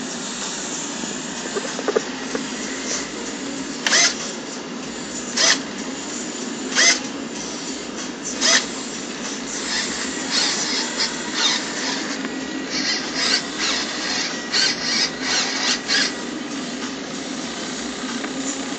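Small electric servos and retract units of a radio-control F6F Hellcat model whirring in short bursts as the tail-wheel retract and cowling flaps are cycled. The bursts come about every second and a half at first, then in a quicker run of shorter bursts, over a steady background hum.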